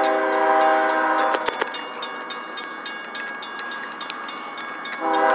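BNSF ES44AC locomotive air horn sounding for the grade crossing. One long blast stops about a second and a half in, and a second starts near the end. Under it the crossing signal's bell rings steadily, about three strokes a second.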